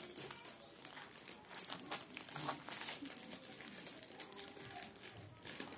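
Thin clear plastic bag crinkling as it is handled, a scattered run of small crackles.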